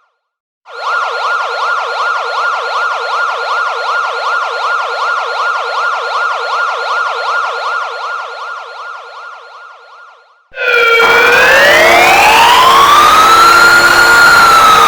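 Emergency alert system alarm: a fast warbling siren tone comes in after a moment of silence and fades away. About ten and a half seconds in, it is cut off by an abrupt, very loud slow wailing siren that rises and falls over several seconds.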